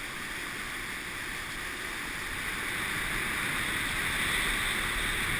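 Steady rushing hiss of water skis cutting through the water and wind over a helmet-mounted camera at towing speed, growing a little louder toward the end.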